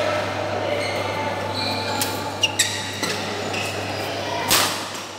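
Badminton shoes squeaking on the court floor, then a single sharp crack of a racket striking the shuttlecock about four and a half seconds in.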